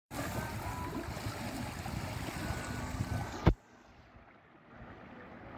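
Steady rushing noise of wind and sea water on an open fishing boat's deck, ending in a sharp click about three and a half seconds in, after which it is much quieter.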